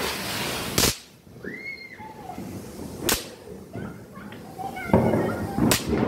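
Three sharp firecracker bangs, about two and a half seconds apart. The first and last each come after a short hiss.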